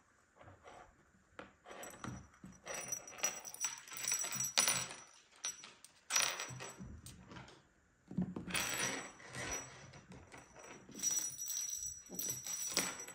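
Small jingle bell on a feather wand cat toy jingling and rattling in irregular bursts as kittens bat at it and drag it across a tabletop.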